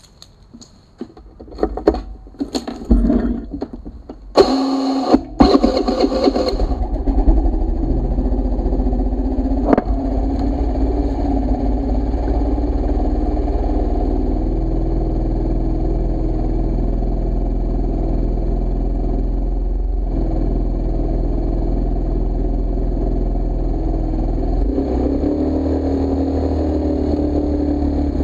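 Motor scooter being started: a few clicks and knocks, a loud burst as the engine catches about four seconds in, then the engine idling steadily. Its note shifts a little near the end as the scooter begins to roll.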